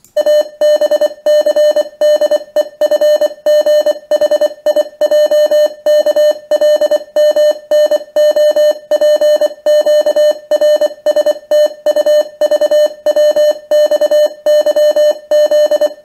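Computer-generated Morse code played through the speakers: a loud, steady-pitched beep keyed on and off in short dits and longer dahs. It sends the letters A to Z run together with no extra pause between letters, as if they were a single word.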